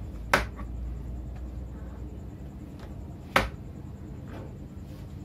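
Two sharp knocks, about three seconds apart, with a few fainter ticks, as a metal utensil and a papaya are handled on a plastic cutting board.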